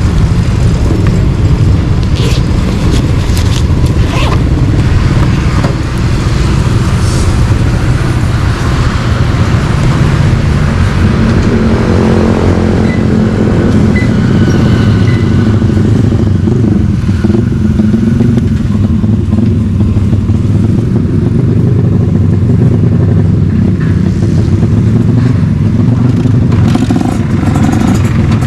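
ZX 300 R motorcycle engine and exhaust running steadily and loudly, with a few sharp clicks in the first few seconds.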